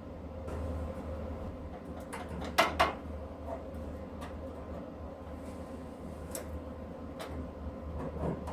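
Metal handling in a shop: two sharp knocks close together about two and a half seconds in and a few lighter clicks, over a steady low hum.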